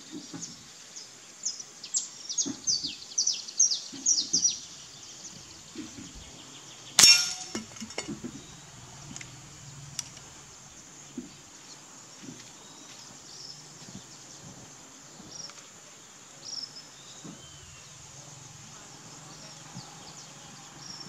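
A bird calls a quick series of falling chirps. About seven seconds in, a single sharp metallic clang with a short ring: an air-rifle pellet strikes a steel fish-silhouette target and knocks it down.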